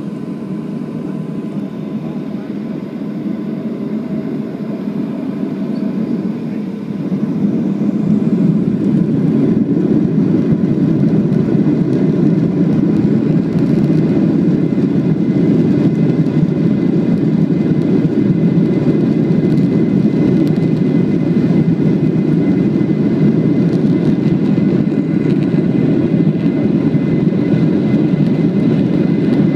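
Cabin noise of a Boeing 737-800 on its takeoff roll, heard from a seat over the wing: the CFM56-7B jet engines spool up, growing louder about seven seconds in, then running steadily at takeoff power with a faint high whine over the rumble and rush.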